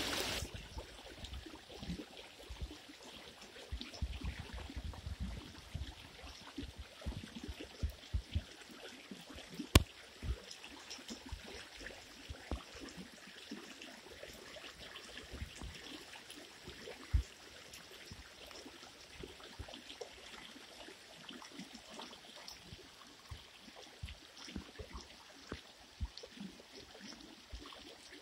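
Shallow muddy irrigation water flowing over an orchard floor: a steady, quiet rush with small gurgles. Frequent low bumps on the microphone throughout, and a sharp click about ten seconds in and another a few seconds later.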